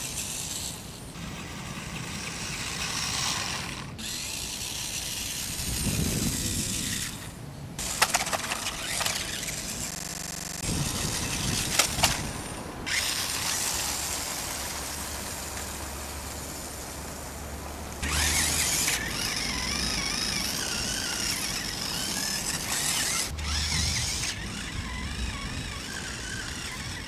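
Small 1/18 rock-crawler RC cars' electric motors and plastic gearboxes whining and grinding, the whine wavering up and down in pitch with the throttle. The sound changes abruptly every few seconds.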